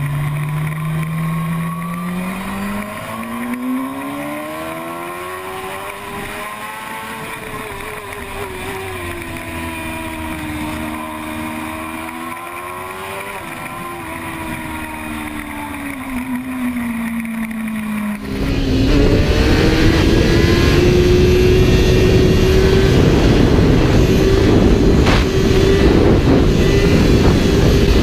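Sport motorcycle engine heard from an onboard camera at speed, its note climbing and falling as the rider opens and closes the throttle. About two-thirds of the way in, it switches abruptly to a louder rush of wind over the microphone with a steady, higher engine note.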